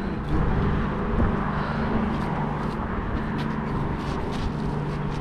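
Steady rumble and hum of road traffic on a bridge, with a vehicle's engine hum held throughout.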